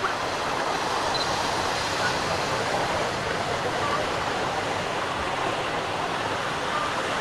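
Small North Sea waves breaking and washing up on a sandy beach, a steady rushing surf, with a few faint distant shouts of bathers here and there.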